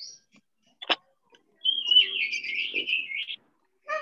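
Birds chirping: a quick, twittering run of high calls through the middle, after a single sharp click about a second in.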